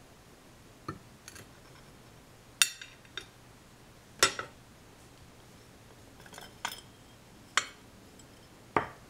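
Glass teapot parts clinking as they are fitted together: the glass handle and lid knocking against the glass body and infuser. About ten sharp chinks, some with a brief high ring, the loudest about two and a half and four seconds in.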